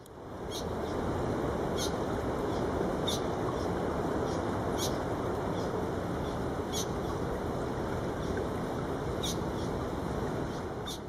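Male Rüppell's weaver giving short, high call notes, about seven of them, spaced one to two and a half seconds apart, over a steady rushing background noise that is louder than the calls.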